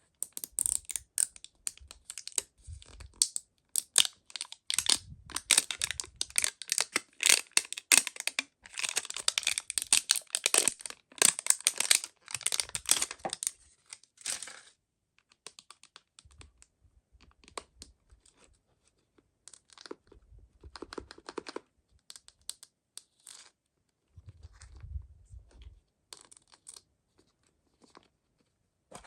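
Packaging of mystery toys being torn open and crinkled close to the microphone: dense crackling and tearing for about the first fifteen seconds, then sparser rustles and small clicks of handling.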